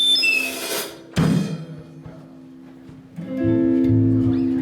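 Live band music with guitar and drums. It drops away about a second in, after a single sharp hit, then full sustained chords come back in about three seconds in.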